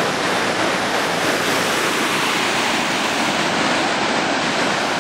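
Foaming mine-tailings wastewater rushing steadily down a rocky stream channel, a loud, unbroken sound of running water.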